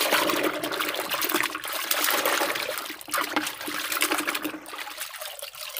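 Soapy water splashing and sloshing in a basin as a hand swishes toy cars through it. It starts abruptly, is loudest for the first three seconds, and eases off near the end.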